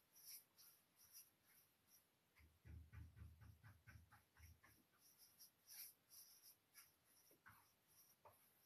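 Faint brushing: a paintbrush stroking a liquid top coat of sealing wax onto a wooden chest's lid. About two and a half seconds in there is a quicker run of short strokes, about five a second, lasting about two seconds.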